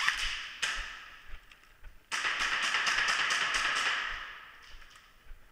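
Airsoft guns firing: a sharp crack about half a second in, then a burst of rapid shots with a hissing rattle lasting about two seconds and dying away in the hall's echo.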